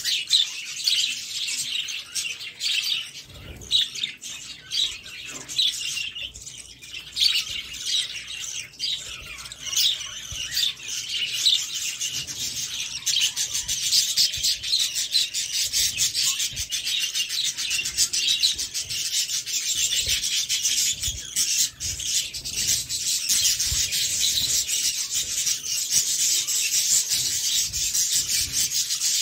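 A nestful of parakeet chicks calling noisily, a continuous rasping chatter of high, overlapping calls that grows denser and steadier after about thirteen seconds, with some scuffling among the chicks.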